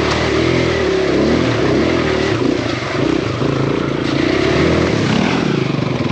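Kawasaki KLX140RF's single-cylinder four-stroke engine being ridden, its revs rising and falling with the throttle as the dirt bike works along a muddy trail.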